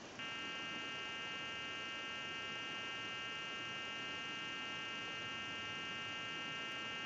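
A steady hum on the telephone line, starting a moment in, in the middle of a time-and-temperature recording. It comes from a fault in the recording service's own equipment.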